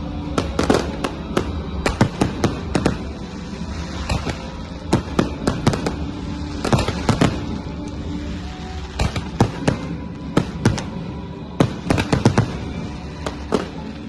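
Fireworks shells bursting in quick clusters of sharp bangs, several a second at the busiest moments, with short pauses between the volleys.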